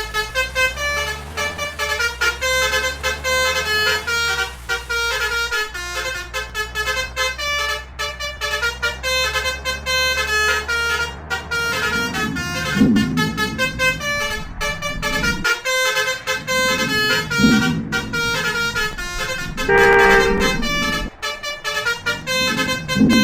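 Basuri 'telolet' multi-tone horn playing a quick tune of short notes over a running vehicle engine. About twenty seconds in there is one longer, louder horn blast.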